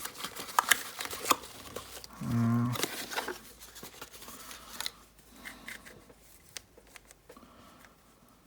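Rustling and sharp small clicks of hands handling packaging and plastic puzzle cubes, with a short hummed sound from a man about two seconds in; the handling gets quieter after about five seconds.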